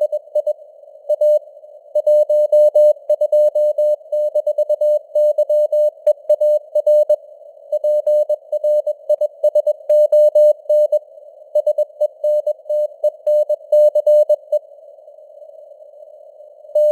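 Morse code (CW) at 21 words per minute: a single mid-pitched tone keyed in dots and dashes over simulated radio band hiss, with the signal strength varying (QSB). The keying stops for about two seconds near the end, leaving only the hiss.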